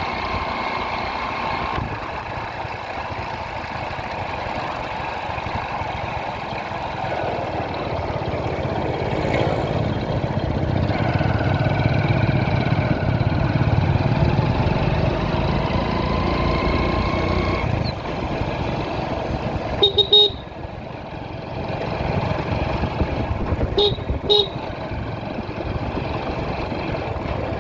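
Motorcycle riding through road traffic, its engine and road noise running steadily with other vehicles around. Short horn honks sound about 20 seconds in and twice more a few seconds later.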